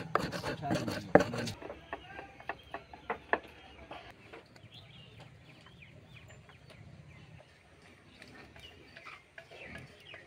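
Hands rubbing and crushing white grains against an aluminium bowl: a dense run of scraping and clicking that cuts off abruptly about a second and a half in. After that it is much quieter, with a few scattered ticks and faint bird calls chirping in the background.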